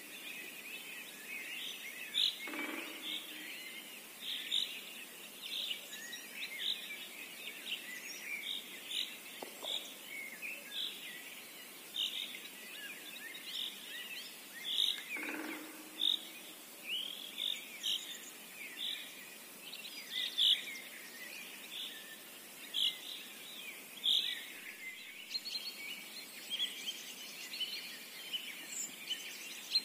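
A dusk chorus of birds by a river: many short, high chirps and song phrases overlapping, with a couple of lower calls standing out about two seconds in and midway.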